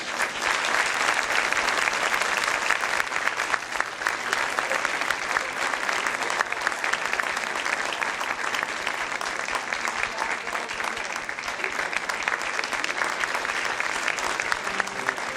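Audience applauding and cheering after a children's choir song, a dense steady clapping that eases off slightly toward the end.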